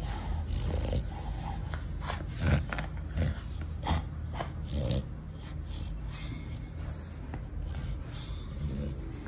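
Small dog growling low as it bites and chews a sneaker, with scattered sharp clicks of teeth on the shoe.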